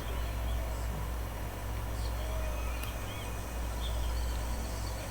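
Nature ambience: scattered short bird chirps over a steady low rumble.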